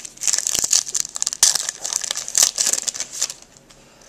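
Foil hockey-card pack wrapper being torn open by hand, crinkling and tearing in a rapid run of crackles that stops about three and a half seconds in.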